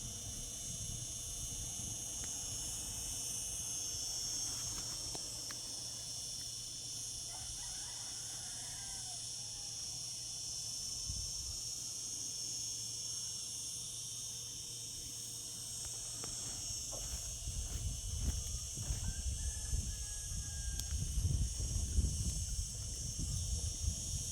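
Cicadas singing in a steady, continuous high-pitched chorus. In the last several seconds a low, uneven rumble rises underneath.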